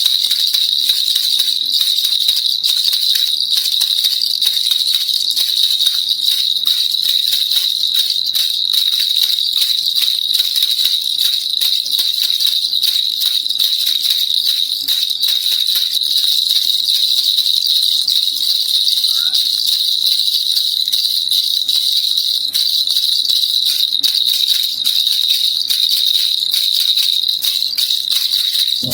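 Baby rattle (kilukiluppai) shaken without pause: a dense, rapid rattling over a steady bright, high ring.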